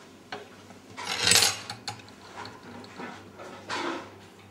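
Light kitchen handling sounds from a ceramic bowl of beaten egg being picked up to glaze the risen potica: a few soft clicks, and a brief scraping rustle about a second in.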